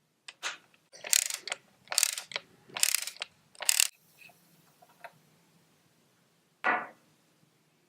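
Socket ratchet wrench on a 24mm socket unscrewing a suspension fork's air cap: about five quick bursts of ratcheting clicks as the handle is swung back between turns. One short clatter follows later, after a quiet spell.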